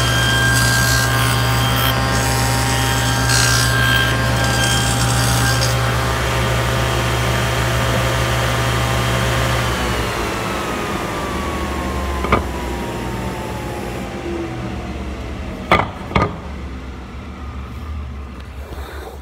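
Table saw with a dado blade running and cutting wood, then switched off about ten seconds in, its pitch falling steadily as the blade spins down. One sharp knock comes midway through the spin-down, and two more follow close together near the end.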